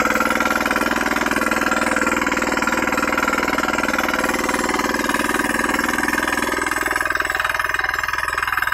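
KisanKraft 9 hp air-cooled single-cylinder diesel power weeder running steadily under load while tilling soil, its engine giving a rapid, even knocking beat.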